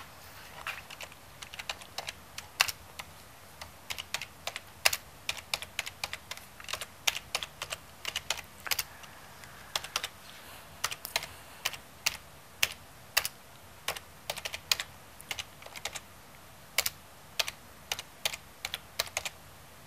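Typing on a computer keyboard: irregular keystroke clicks in short runs with brief pauses between them.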